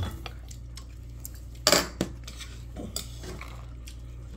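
Metal tongs and utensils clinking against ceramic bowls and dishes, with one loud clatter just under two seconds in and lighter clicks after it.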